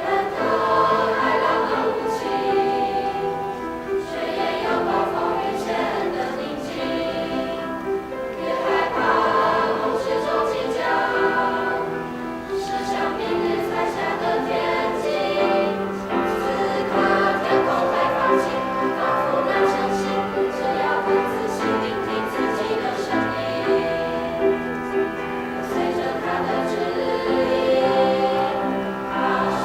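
High-school choir singing a song in chorus, the voices holding notes and moving through the melody.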